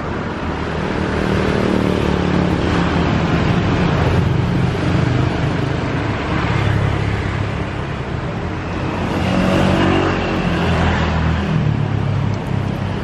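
Road traffic with a motor vehicle engine running close by, its pitch rising and falling as it speeds up and slows down.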